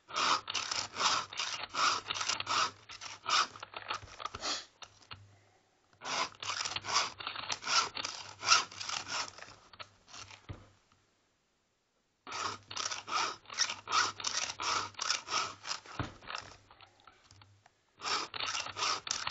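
Stihl chainsaw file guide, holding a round file and a flat file, rasping across the cutters and rakers of a chainsaw chain in quick back-and-forth strokes, about two to three a second. The filing comes in four runs of several strokes, with short pauses between as the guide is moved on to the next tooth.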